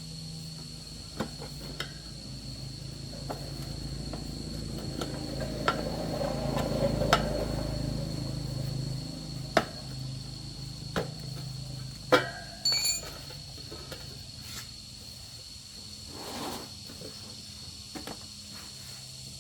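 Scattered metallic clinks and taps of hand tools, a dozen or so, with a sharp knock and a brief metallic ring about twelve seconds in. Under them runs a steady high-pitched buzz and a low hum, and a low rumble swells and fades in the middle.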